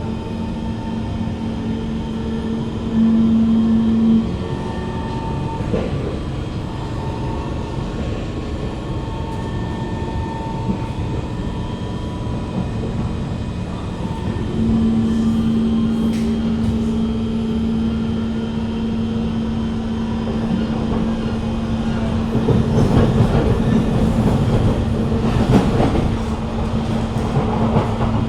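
Inside a Kawasaki Heavy Industries C151 metro carriage: the train's equipment hums with one steady tone. The tone steps up louder briefly about three seconds in, then again about fifteen seconds in and stays up. Rougher running noise from the wheels on the rails builds near the end.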